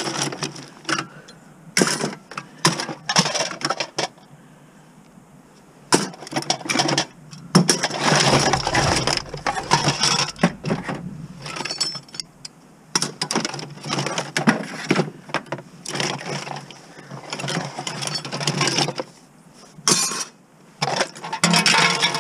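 Scrap being broken apart by hand: irregular knocks, clanks and clatter of parts being pulled and dropped, with a short lull about four seconds in.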